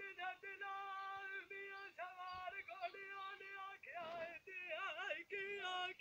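A man singing Punjabi dholay, unaccompanied, in a high, strained voice: long held notes broken by short breaths, with quick wavering ornaments.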